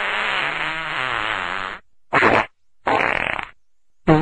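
Comic fart sound effects: one long, wobbling fart lasting almost two seconds, then three short ones in quick succession.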